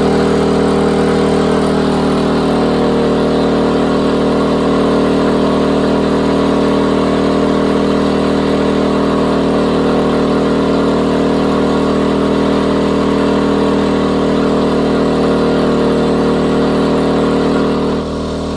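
Westinghouse iGen2550 inverter generator running steadily in eco mode, with an even engine hum that drops a little in level near the end.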